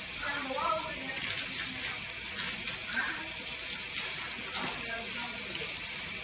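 A steady hiss with faint voices in the background.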